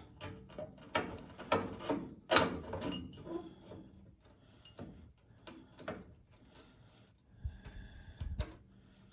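Sheet-steel patch panel handled and set against an early Ford Bronco's rear floor pan: a run of light metallic clicks, taps and scrapes, busiest in the first few seconds, then two dull thumps near the end.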